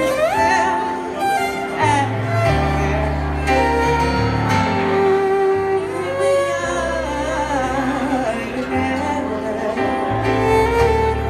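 Live violin and keyboard playing a slow soul ballad, the violin's bowed line sliding between notes over held low keyboard notes, with a woman singing.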